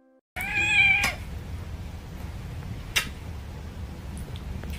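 A cat meows once, a single call of about two-thirds of a second, starting about half a second in. Low handling rumble follows, with a sharp click about three seconds in.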